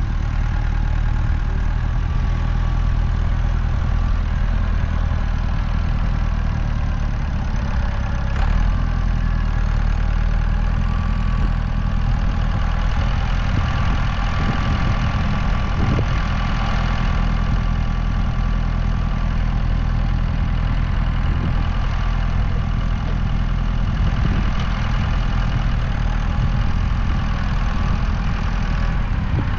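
Massey Ferguson tractor's diesel engine running steadily while the tractor works its front-end loader, loading chicken manure into a spreader.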